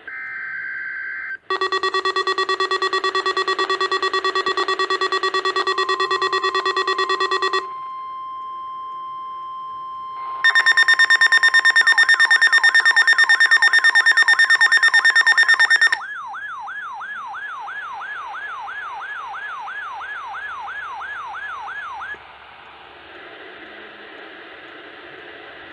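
NOAA Weather Radio's 1050 Hz warning alarm tone sent as a weekly test, setting off weather alert radios' alarms. First comes a loud buzzing alarm for about six seconds, then the steady 1050 Hz tone alone. Then a loud pulsing alarm starts with a fast warbling siren sweep over it; the sweep goes on alone for about six seconds, then gives way to radio hiss.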